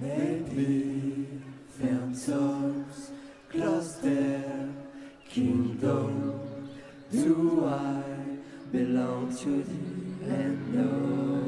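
Beatboxing into a cupped microphone, unaccompanied: hummed, sliding vocal tones over sharp percussive mouth hits that come about every second and a half to two seconds.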